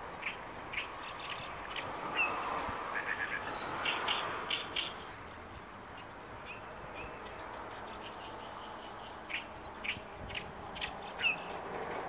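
Oriental reed warbler singing its harsh, chattering territorial song: a run of short, sharp notes, a pause of a few seconds, then a second run near the end.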